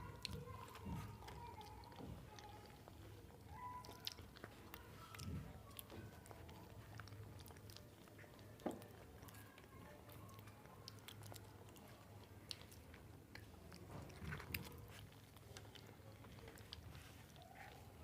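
People chewing and biting bananas at close range: soft, wet chewing with scattered small clicks and knocks over a faint steady low hum.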